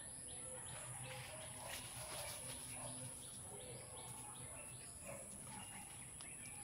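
Faint outdoor ambience: a steady high-pitched insect drone with repeated short bird chirps over it.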